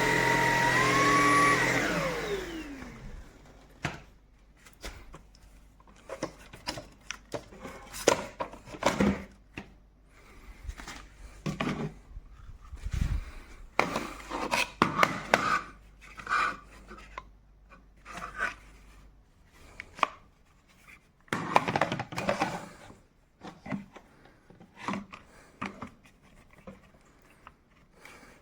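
Tineco A30S cordless stick vacuum motor running with a steady whine, then switched off about two seconds in, its pitch sliding down as it spins to a stop. After that come scattered clicks, knocks and rubbing as the vacuum is handled.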